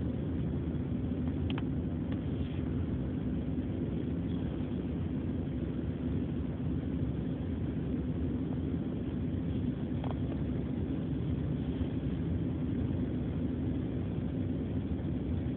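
Steady low rumble of a car's interior while it runs, engine and road noise heard from inside the cabin.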